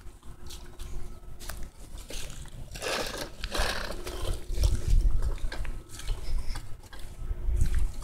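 A child's bicycle with training wheels rolling over concrete, its wheels rattling and clicking irregularly. Heavy low rumble from the phone being carried comes in surges, strongest about five seconds in.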